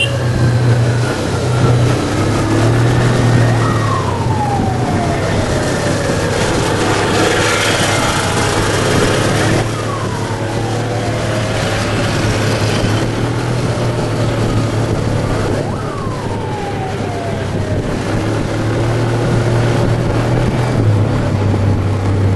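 Vintage motorcycles and scooters riding in a procession, their engines running under a steady low drone. Several engine notes fall in pitch over a few seconds each, spaced out through the passage.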